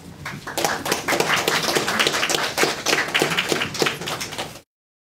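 Audience applause: many people clapping, starting about half a second in and cutting off abruptly near the end.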